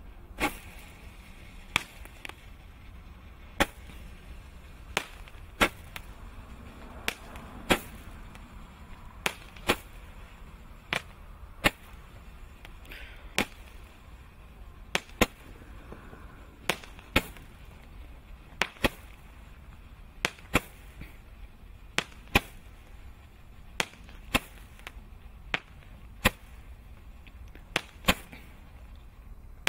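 Aerial firework shots going off: a series of sharp bangs, one every second or two and often in close pairs, as it throws up bursts of gold stars.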